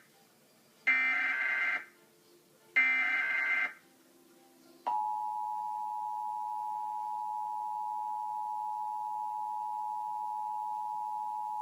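Emergency Alert System SAME header: two harsh digital data bursts of about a second each. About five seconds in, the EAS two-tone attention signal (853 and 960 Hz sounded together) starts and holds steady, announcing an alert.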